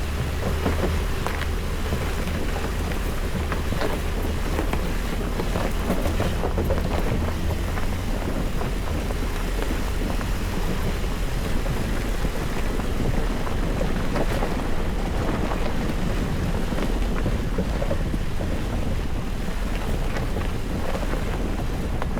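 Jeep Gladiator driving over a rocky dirt trail: a steady low rumble of engine and tyres, with frequent small knocks and rattles and wind noise on the microphone.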